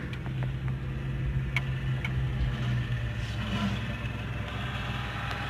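Vehicle engine running steadily while driving, a low even hum with a few light clicks and rattles.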